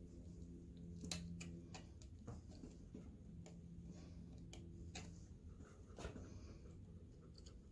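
Faint, irregular clicks and scrapes of a small metal hand tool picking at the stuck O-ring of a wet cylinder sleeve inside a cast-iron engine block, about a dozen sharp ticks spread unevenly, over a low steady hum.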